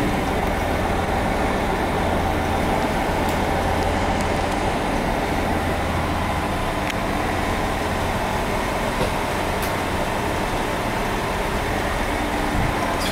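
Steady hum and whir of a standing JR 221 series electric train's onboard equipment, heard inside the cab and saloon; the low hum weakens about two-thirds of the way through. A few light clicks.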